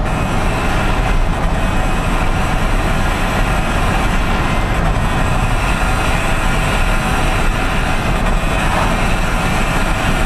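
Steady road and engine noise inside the cabin of a moving vehicle at road speed, a constant low rumble with tyre hiss.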